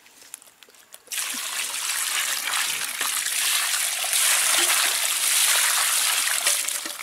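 Water poured from a metal pot splashing onto mud-covered fish in a mesh net and draining through the mesh, washing the mud off. The pour starts suddenly about a second in, gets louder about halfway through, and eases near the end.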